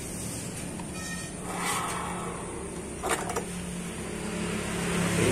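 Clutch and driven pulley assembly being lifted off a Honda Vario 125's CVT shaft: a soft scrape, then a brief metallic clatter about three seconds in, over a steady low hum.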